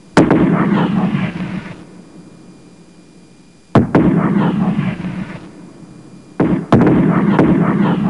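Three loud bangs, each a sharp crack followed by a second or so of crackling rumble that dies away. The third has a double crack.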